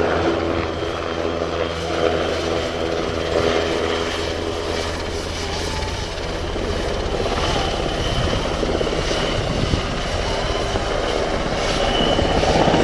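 NHIndustries NH-90 twin-turboshaft helicopter flying overhead: a steady rotor and engine sound with a high turbine whine, growing louder near the end as it comes closer.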